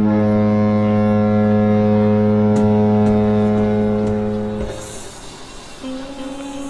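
A deep, steady horn-like tone that starts suddenly, holds without changing pitch for about four and a half seconds and then stops, followed near the end by a quieter, higher held tone.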